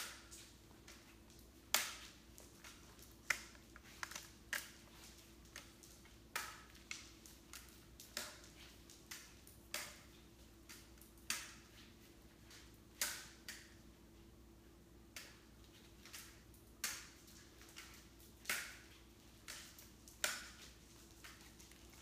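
Aluminium crutches and a walking boot tapping and clunking on a hardwood floor as someone walks on crutches, a sharp knock about once or twice a second, over a faint steady hum.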